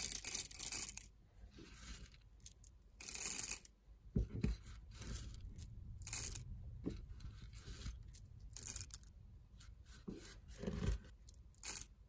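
Handfuls of whole coffee beans poured into the brass body of a Turkish hand coffee grinder, rattling in about five short bursts, the first the loudest, with a couple of dull knocks in between.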